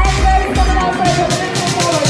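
Music with a steady bass beat and a held melody line.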